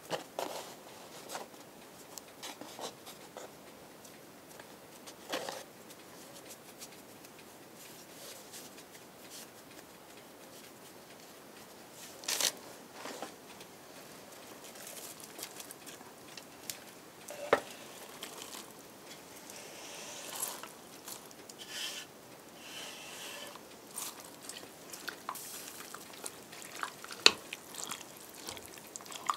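Quiet kitchen handling sounds: scattered soft knocks, taps and rustles as dough pies are folded by hand and shredded cabbage is pushed off a wooden cutting board into a pot. Near the end, a metal ladle stirring the cabbage in the pot, with a sharp clink.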